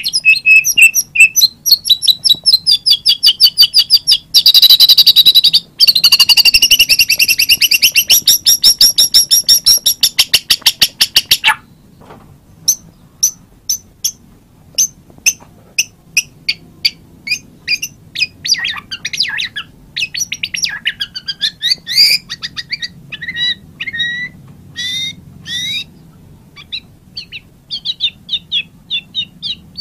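White-rumped shama singing: for about the first eleven seconds a dense, very fast run of repeated high notes, then a sparser string of separate whistled notes and varied sweeping phrases.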